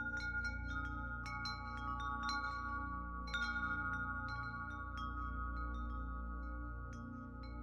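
Ambient background music of chimes ringing at uneven intervals, each note ringing on over a steady low drone.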